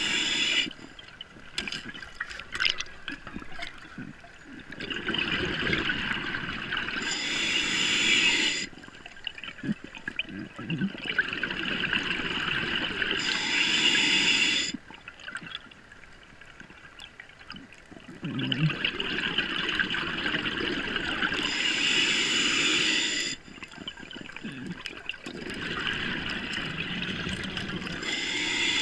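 Scuba diver breathing through a regulator underwater: each breath is a hiss with a rush of exhaled bubbles. There are four breaths, about one every seven seconds.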